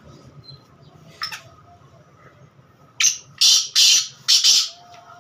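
Caged black francolin calling. A single short note comes about a second in. Near the end comes a quick run of four loud, scratchy notes.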